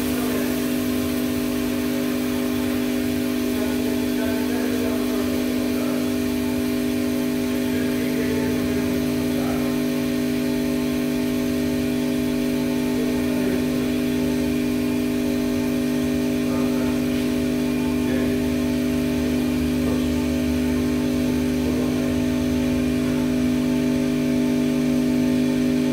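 Automatic coffee-weighing scale running a fill, dispensing roasted beans into a metal bucket: a steady machine hum with a few held tones that does not change.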